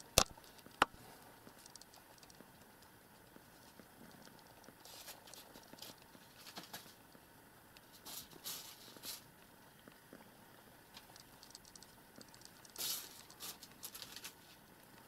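Mostly quiet, with two sharp clicks just at the start, then faint, scattered soft rustles and ticks in small clusters.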